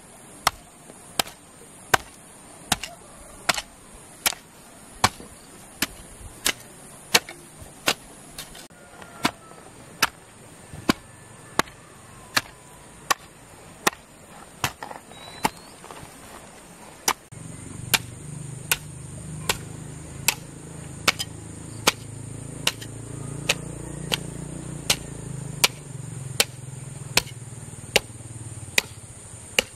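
Hand hoe chopping into dry, lumpy soil in a steady rhythm of about four strikes every three seconds. The blade thuds sharply into the earth with each stroke. A low rumble joins in about halfway through.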